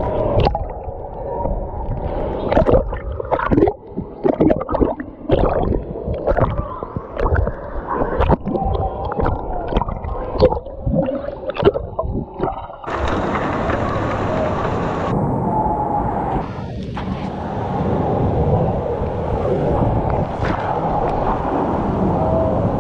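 Muffled underwater sound from a camera microphone in a pool: gurgling water and bubbles with many sharp knocks and clicks. About thirteen seconds in the sound turns abruptly to a steady rush of churning, splashing pool water heard above the surface.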